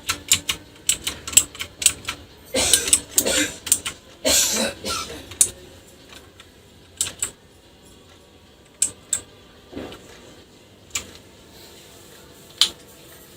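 Keys of a budget mechanical keyboard clacking: a quick run of keystrokes, two longer, louder stretches of rattling clatter about three and four and a half seconds in, then single key presses every second or two.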